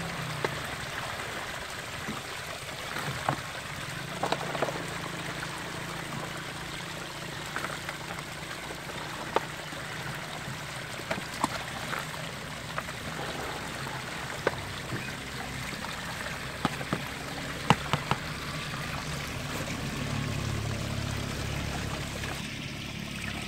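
Water trickling and dribbling steadily, with scattered sharp clicks and knocks from a plastic basket and bucket being handled.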